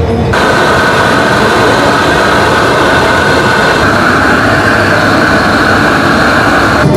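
Gas torch flame burning with a steady, loud hiss, heating molten glass on a blowpipe. It starts suddenly about a third of a second in and cuts off just before the end.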